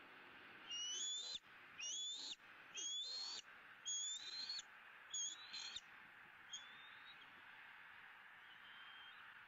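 Bald eagle calling: a series of about six high, rising whistled notes, each about half a second long, followed by a couple of fainter, shorter notes.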